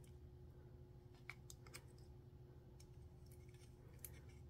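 Near silence with a few faint, scattered clicks of the plastic earbuds and their charging case being handled, over a low steady hum.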